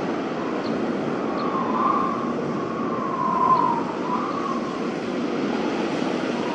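Snowstorm wind blowing steadily, with a howling whistle that rises and falls in pitch through the middle.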